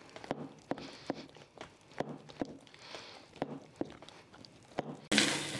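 Pork lard being beaten by hand in a galvanized metal tub to whip it fluffy for tamale masa: irregular wet slaps, roughly two a second. About five seconds in it cuts abruptly to meat sizzling as it fries in a clay pot.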